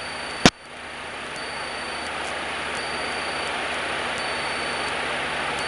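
Cabin noise of a Cessna 152 in cruise flight: a steady hiss of engine and airflow with a faint low hum, slowly getting louder, broken once by a sharp click about half a second in.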